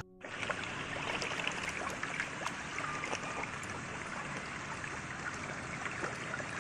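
Koi splashing and slapping at the water's surface as a dense crowd of them churns in the shallows around a person's feet, a steady busy patter of many small splashes.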